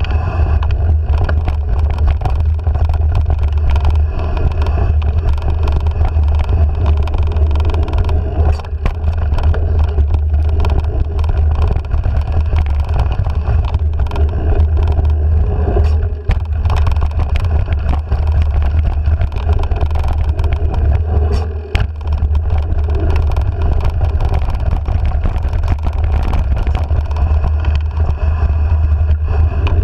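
Heavy, steady wind rumble on the microphone of a handlebar-mounted camera while a mountain bike rolls along a dirt singletrack, with the tyres' crunch on the dirt and many short clicks and rattles from the bike over bumps.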